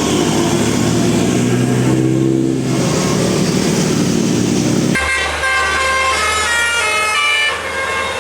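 Bus telolet Basuri musical horns playing tunes of changing notes. First comes a lower-pitched tune over engine and road noise. About five seconds in it switches abruptly to a higher, quicker run of notes.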